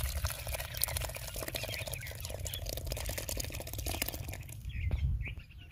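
Freezer-cold milk pouring from a clay bowl onto crushed biscuits in a clay bowl: a steady noisy pour full of small crackles, with a low rumble underneath.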